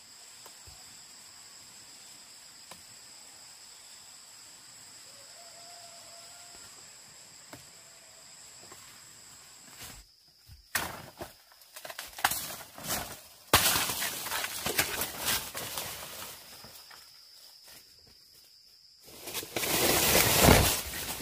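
Insects calling in two steady high tones for the first half. About halfway through, a run of loud knocks and clatter with rustling noise takes over, ending in a loud burst of rustling near the end.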